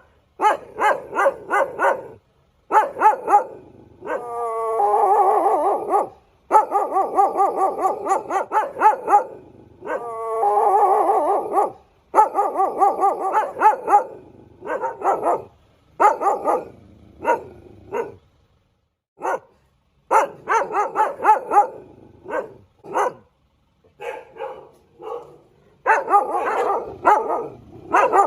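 Dog barking in quick runs of short barks, with two longer drawn-out cries, about four and ten seconds in, that start with a falling pitch.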